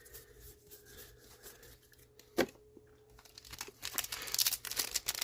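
A foil trading-card booster pack wrapper being torn open and crinkled, starting after a quiet stretch that has a single tap in it.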